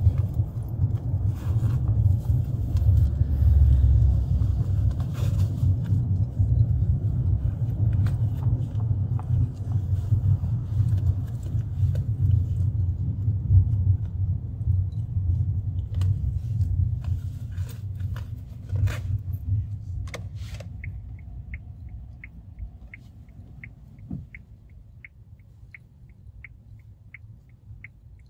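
Car's low road and engine rumble heard inside the cabin, fading away about three-quarters of the way through as the car slows, with a few sharp clicks just before. Once it is quiet, an even light ticking of about two a second sets in.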